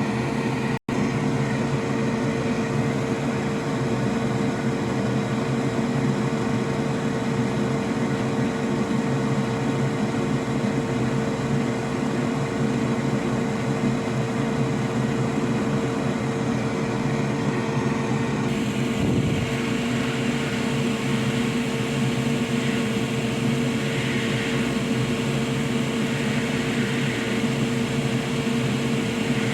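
Steady hum of a small electric blower on a repair bench, with a constant mid-pitched whine over a lower hum. The sound drops out for an instant just under a second in, and its upper part shifts slightly about two-thirds of the way through.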